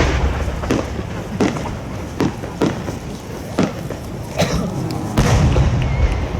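Large aerial fireworks shells booming: a string of sharp reports at uneven intervals, then a heavy rolling boom from about five seconds in.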